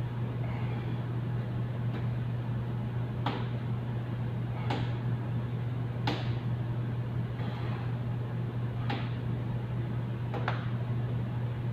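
Two yellow plastic-plated dumbbells clinking together at the top of each overhead press, five sharp clicks about every one and a half seconds, over a steady low machinery hum.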